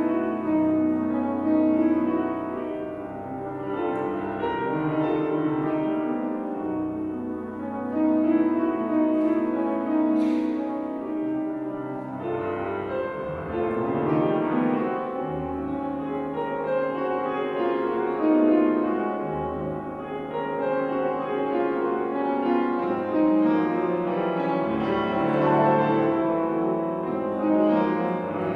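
Grand piano played solo: a classical piece of full, sustained chords and melody, swelling and easing in loudness.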